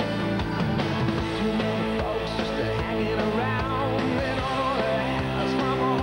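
Rock music with guitar and a steady beat.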